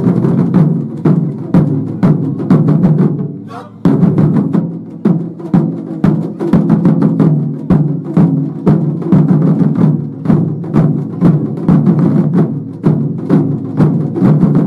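Japanese taiko drums played in a fast, dense rhythm, with a short lull about three and a half seconds in before the full drumming comes back in at once.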